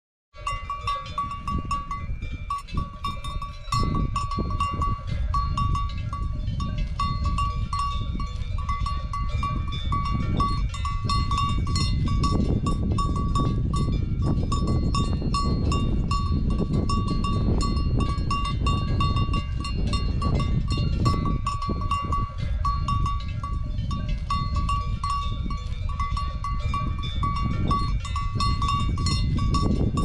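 A cowbell ringing over and over with one clear note as a cow grazes, over short tearing and chewing clicks of grass being cropped. A strong steady low rumble runs underneath.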